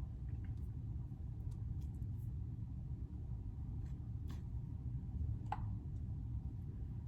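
Steady low rumble of background room noise, with a few faint short clicks about four and five and a half seconds in.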